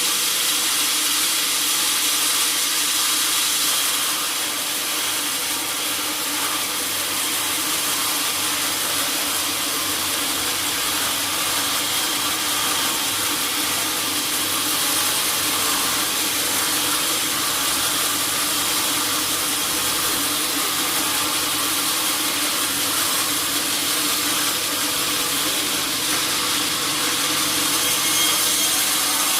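Sawmill saw cutting through a teak log, a steady loud whine and rasp of the blade in the wood, easing slightly for a moment about four seconds in.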